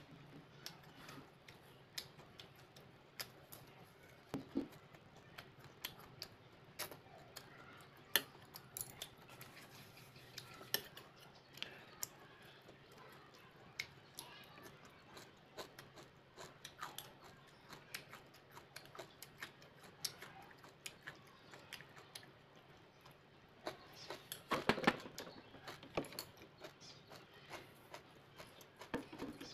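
Metal chopsticks clicking and tapping against ceramic plates and bowls as someone eats, with soft chewing between the taps. A louder cluster of knocks comes near the end.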